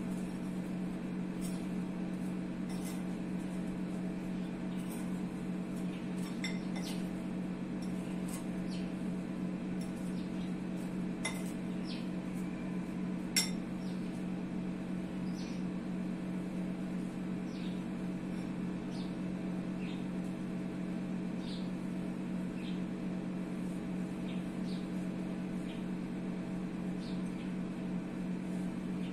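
A metal spoon clinking now and then against ceramic bowls and a plate, with a sharper clink about halfway through, over a steady low hum.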